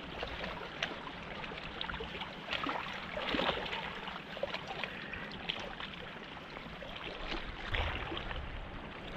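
Steady rush of river water, with a few short knocks over it, the strongest about three seconds in.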